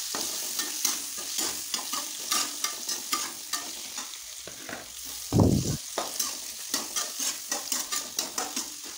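Capsicum and tomato pieces sizzling in oil in a non-stick wok while a metal spatula stirs and scrapes them, about two strokes a second. A dull thump about halfway through is the loudest sound.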